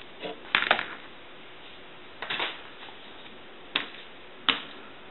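Sharp clicks and short clatters of small tools and parts being handled on a workbench during soldering work, coming in irregular groups about five times.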